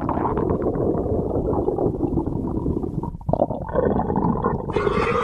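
A person's stomach growling and gurgling in a continuous rumble, with a short lull about three seconds in.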